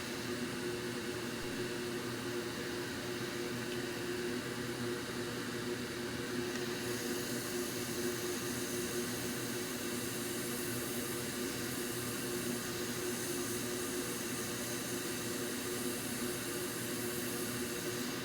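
Fume extractor fan running at a steady whir, with a low hum under an even hiss; the high hiss gets a little stronger about seven seconds in.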